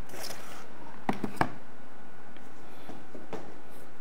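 Handling noise from hands on the reel and its packaging: a short rustle at the start, then three small clicks about a second in.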